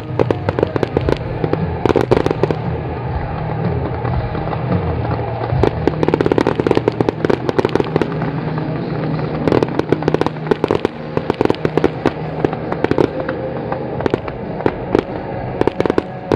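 Fireworks display going off: a rapid, irregular run of sharp bangs and crackling, thickest in several volleys, over a steady low hum.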